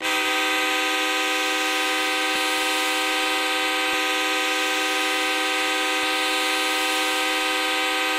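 The Wichita Falls Wildcats' 2010 NAHL ice hockey goal horn sounding one unbroken, steady blast, a single chord-like horn tone with a rich stack of overtones.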